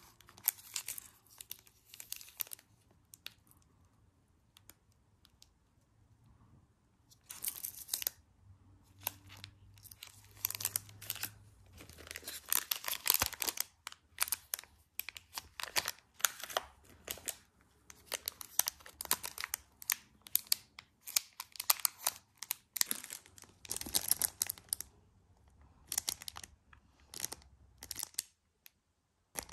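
Clear plastic packaging crinkling and rustling in bursts as it is handled in disposable gloves. Quieter a few seconds in, busier over the second half.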